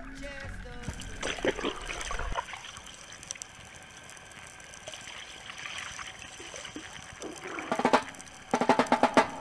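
Underwater ambience picked up by a camera in a waterproof housing: a steady wash of water noise with scattered small clicks and crackles. Near the end comes a louder run of rapid pulses.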